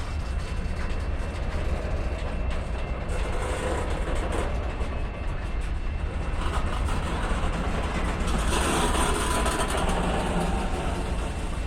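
BNSF freight train rolling past on the tracks, a continuous rumble of cars and wheels on rail that grows louder about two-thirds of the way in.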